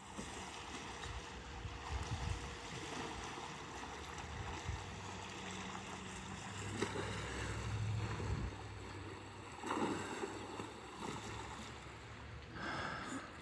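Steady outdoor rush of wind and water, with a few louder swells.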